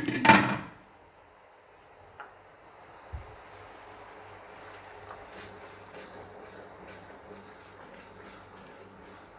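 A short loud noise right at the start, then sauce in a karahi simmering faintly with scattered light ticks, as a cornflour-and-water slurry is added to thicken it.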